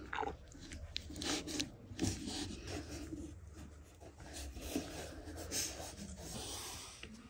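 Hands rubbing, folding and pressing thin dough on a wooden pastry board: soft, irregular rustling with a few light taps.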